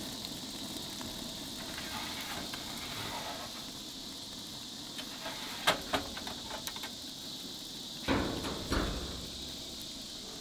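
Gas-fired infrared broiler running with a steady hiss, with two sharp metal clanks about six seconds in as its stainless pan is slid into the slot by the long handle, then two dull thumps about two seconds later.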